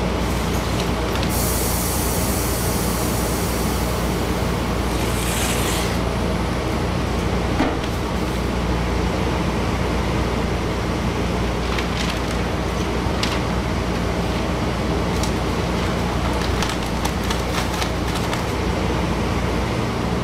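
Steady hum of banknote-paper reel-handling machinery in a paper mill. A hiss starts about a second in and lasts about four seconds, and scattered light clicks follow later.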